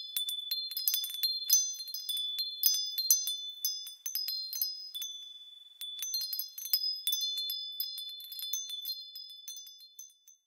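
Wind chimes tinkling: a dense, irregular run of light strikes with high ringing tones, cutting off suddenly near the end.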